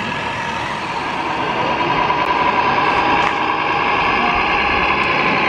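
Radio-controlled scale model trucks driving, a steady mechanical whir with held whining tones that grows louder about two seconds in.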